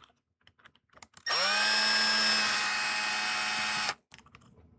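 Electric drill-driver spins up, runs steadily for about two and a half seconds and stops abruptly. A few light clicks come before it.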